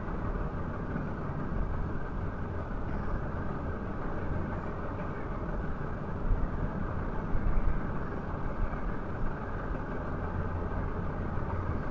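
Steady low background rumble with no distinct events, of the kind PANN files under traffic or an idling engine.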